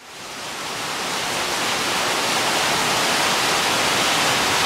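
Heavy downpour: a steady hiss of rain that fades in over the first second or so, then holds level.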